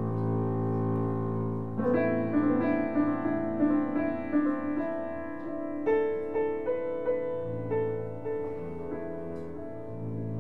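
Live duo of bowed double bass and upright piano: the bass holds a low sustained drone while the piano comes in about two seconds in with a run of repeated struck notes, and strikes a new cluster of notes about six seconds in.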